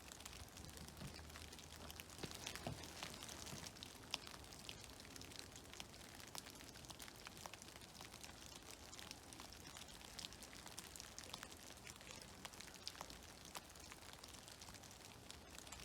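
Meltwater dripping from snow-covered trees: many scattered drops pattering at irregular intervals, over a faint steady rush of creek water.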